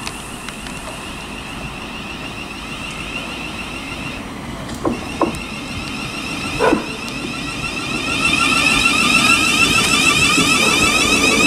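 Thameslink Class 700 electric multiple unit arriving slowly at a platform, its electric whine growing louder as the train draws alongside about eight seconds in. A few short knocks sound near the middle.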